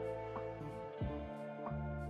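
Instrumental background music: plucked notes sounding over held tones, a new note about every half second.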